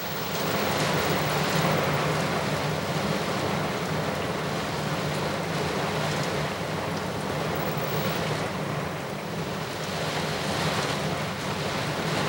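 Intense thunderstorm: driving rain and wind making a steady roar, swelling slightly about a second in, with a low steady hum underneath.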